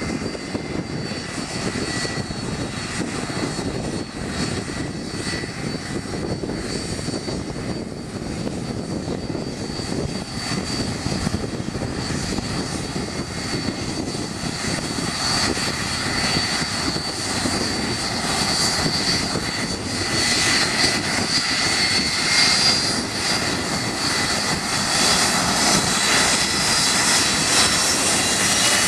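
Twin jet engines of a Boeing 757 airliner at taxi power: a steady high whine over a broad rumble, growing louder through the second half as the aircraft taxis closer.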